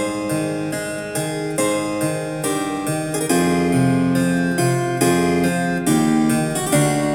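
Classical keyboard music played back through a small Bluetooth speaker, either the JBL Go 3 or its knock-off, a steady run of distinct notes.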